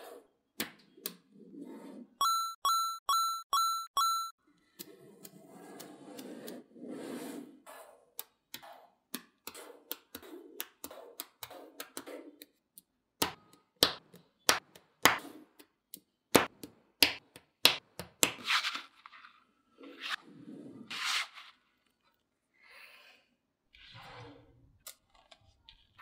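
Small magnetic balls clicking and snapping together as blocks of them are joined, pressed and pulled apart, with soft sliding rustles between the clicks. About two seconds in come five evenly spaced, identical ringing dings.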